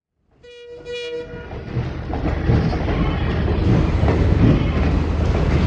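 A diesel locomotive's horn sounds for about a second, a second tone joining partway. Then the train closes in and grows steadily louder, with the low rumble of the engine and the clatter of wheels over rail joints.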